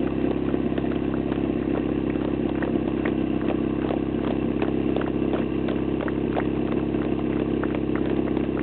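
Portable fire pump's small petrol engine idling steadily, with faint scattered clicks and knocks around it.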